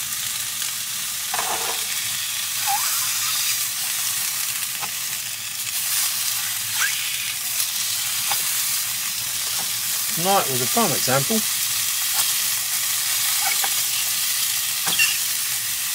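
Chicken sizzling in a non-stick frying pan on a portable gas stove: a steady high frying hiss, with a utensil scraping and pushing the pieces about in the pan as they are broken up. A brief wavering squeal about ten seconds in.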